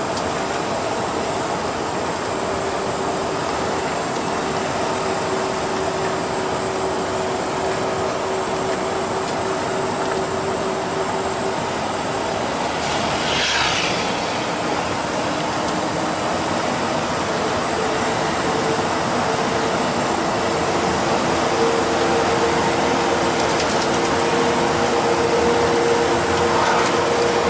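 Cabin sound of an Ikarus 256 coach at cruising speed, with the whine of its RABA rear axle running over the diesel and road noise. The whine is steady and changes pitch about two-thirds of the way through, and there is a brief hiss around the middle.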